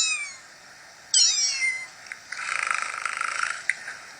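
A person's imitation of a kitten: high-pitched mews falling in pitch, one ending just as the sound begins and another about a second in, played back from a video. A short buzzy purr-like sound follows in the middle.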